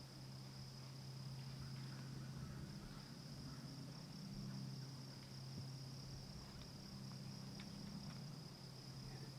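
Faint, steady high-pitched chorus of insects trilling, with a steady low hum underneath and a few faint ticks.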